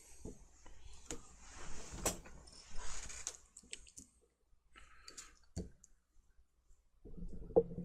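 Irregular small clicks and taps from tools being handled during a phone repair, with a stretch of soft hiss in the first half.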